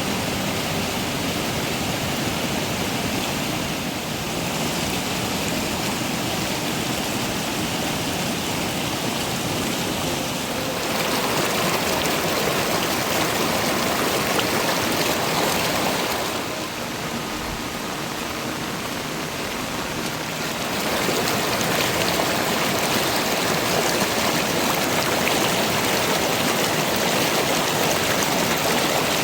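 Steady rush of running water and heavy monsoon rain. It gets louder about a third of the way in, turns duller and quieter for a few seconds past the middle, then comes back up.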